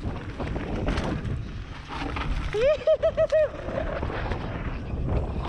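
Mountain bike riding downhill on a dirt singletrack, heard from a GoPro on the rider: wind buffeting the microphone over the rumble and rattle of the bike rolling on the trail. About halfway through comes a short high-pitched warbling tone, four quick pulses in a row.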